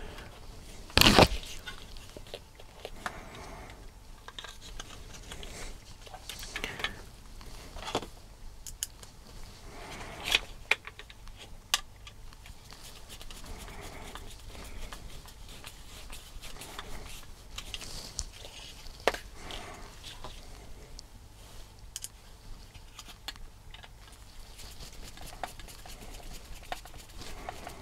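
Scattered clicks, taps and light rattles of hard plastic RC car parts being handled and a hand screwdriver turning small screws into a plastic chassis, with one louder knock about a second in.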